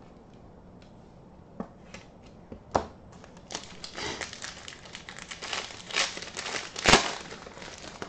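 Foil wrapper of a trading-card pack being crinkled and torn open: a dense crackling rustle from about three and a half seconds in, with its loudest sharp crack near the end. Before it, two light clicks.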